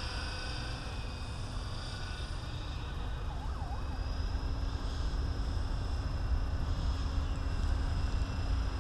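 Align T-Rex 550E radio-controlled helicopter's brushless electric motor and rotors whining steadily overhead, a little louder in the second half, over a low rumble of wind on the microphone.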